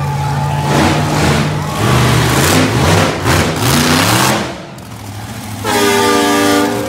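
Monster truck engines running and revving, their pitch rising and falling. Near the end, a loud steady horn-like chord sounds for about a second.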